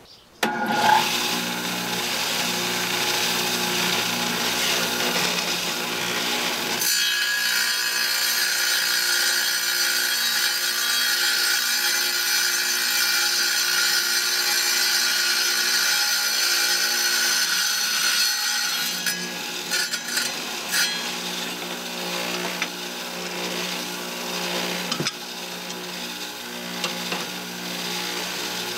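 Tabletop electric tile saw switching on about half a second in and running steadily. It grinds more harshly from about seven seconds in to about eighteen as a tile is fed through the blade to cut it down to a smaller size.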